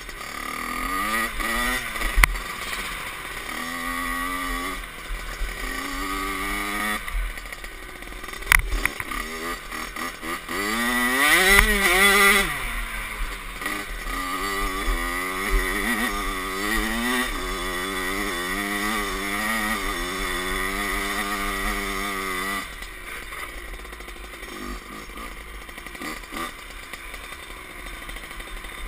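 Kawasaki KX65 two-stroke dirt bike engine with an aftermarket Pro Circuit expansion pipe and silencer, revving up and down again and again as the throttle is opened and closed, the highest rev about halfway through. A couple of sharp knocks come early on, and in the last several seconds the engine drops to a quieter, steadier running.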